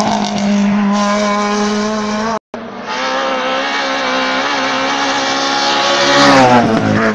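Hill-climb race car engines at high revs passing close by. The engine note falls in pitch as a car goes past at the start and again near the end, and the sound cuts out completely for a split second about two and a half seconds in.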